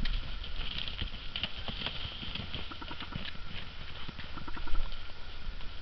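Hoofbeats of a double cream quarter horse stallion moving around a snow-dusted pen on lunge: a quick, irregular run of dull knocks on the frozen, gritty ground.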